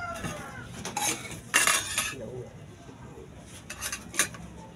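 Handling noises from a plastic bag and cookware: a burst of rustling about a second and a half in, and several light clinks and knocks near the end.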